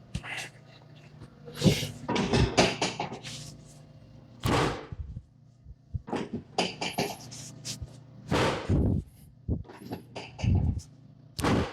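Irregular rustling and bumping on a padded treatment table while a patient shifts and is repositioned. A string of short scuffs and knocks comes every second or so.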